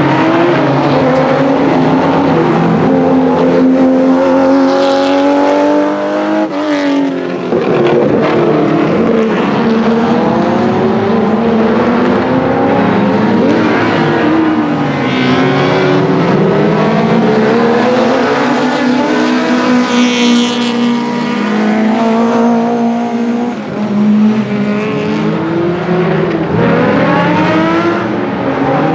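Rally cars racing hard on a circuit stage, engines revving high and rising and falling in pitch through gear changes and lifts of the throttle, with more than one car heard at once at times.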